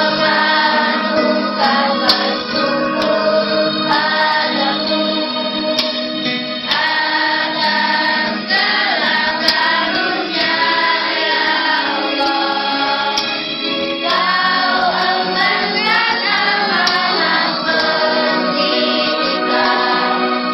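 School choir singing a madrasah march song together, phrase by phrase, over steady held keyboard chords.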